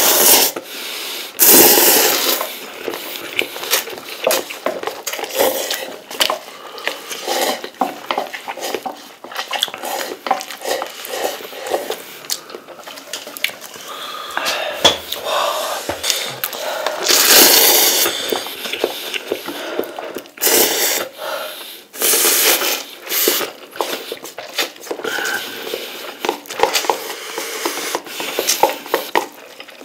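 Noodles being slurped hard and often, in hissing gulps, with chewing between them. Chopsticks click against paper cups and empty cups rustle and knock as they are handled and stacked.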